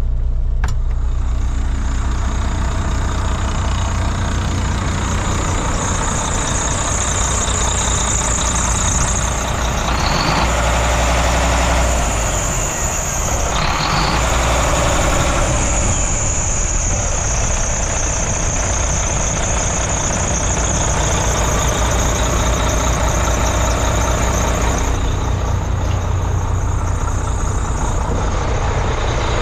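A 2015 Volvo VNL truck tractor's Volvo diesel engine idling steadily, with a steady high whine above the low idle.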